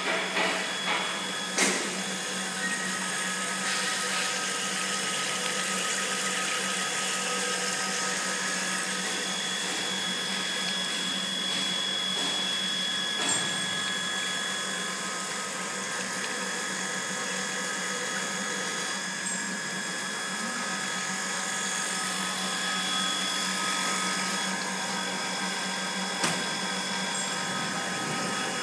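Wire-cut EDM machines running in a machine shop: a steady mechanical hum with several high, steady whine tones over a hiss. A few sharp clicks come near the start and one more near the end.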